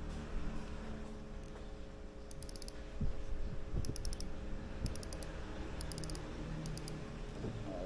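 Shimano Stradic SW 4000XG spinning reel clicking as it is handled: five short runs of rapid, light clicks, with a few soft knocks in between.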